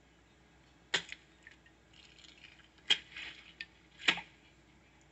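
Eggs cracked against the rim of a mixing bowl: three sharp cracks, the second followed by a short rustle.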